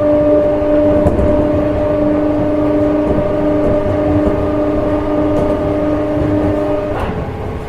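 Odakyu 1700 series electric train running, its Mitsubishi GTO VVVF inverter giving a steady whine of several held tones over the rumble of wheels on rail. The whine cuts off about seven seconds in.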